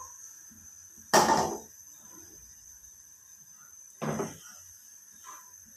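Kitchen bowls knocked down on a hard surface: one loud clunk about a second in and a second, softer knock about four seconds in, as the emptied water bowl is put aside and the bowl of sugar is picked up.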